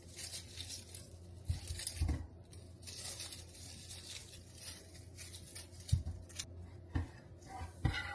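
Plastic grocery packaging rustling and crinkling as groceries are handled and sorted, with a few light knocks as items are set down.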